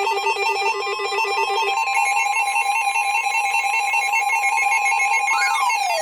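Electronic emergency alert tones: a rapid warbling trill like a telephone ring, which jumps to a higher pitch about two seconds in, then near the end a tone that sweeps up and down like a siren.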